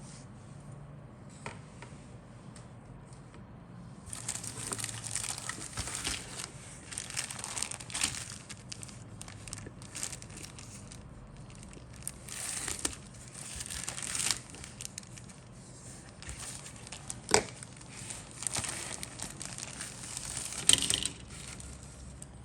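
Plastic kit packaging crinkling and rustling as the model kit's parts are handled, in irregular spells with a few sharp clicks, the loudest about two-thirds of the way in and near the end.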